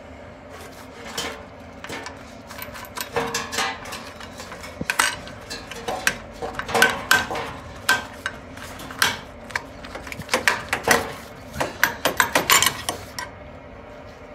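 Rusty steel bracket on a Toyota Hilux chassis rail being worked back and forth by hand until it breaks off at its spot welds: an irregular run of metallic clanks and clicks, loudest around the middle and again near the end.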